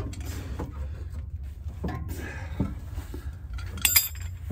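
Light metallic clicks and knocks from hand tools and brake caliper parts being handled, with a sharper cluster of ringing metal clinks near the end, over a steady low rumble.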